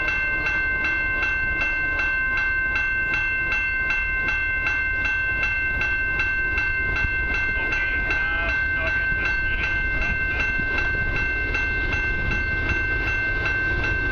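Railway level-crossing bell ringing steadily in a quick, even rhythm, the warning that a train is approaching on the line.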